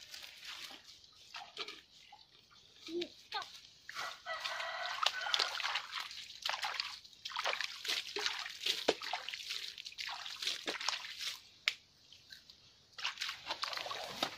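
A rooster crowing, a call with a clear pitch starting about four seconds in, over scattered wet clicks and rustling from mud and grass being handled around a buried bamboo basket fish trap.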